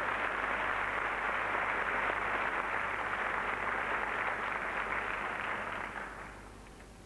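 Audience applauding, fading out about six seconds in.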